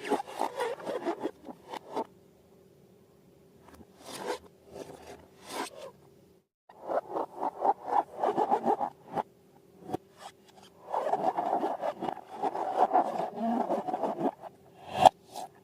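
Bursts of rubbing and scraping as balloons and slime are handled, with short pauses between the runs.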